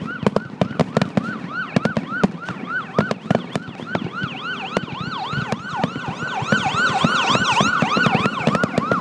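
Emergency vehicle sirens in a fast yelp, a second siren overlapping and growing louder from about halfway through, over steady firework bangs and crackling.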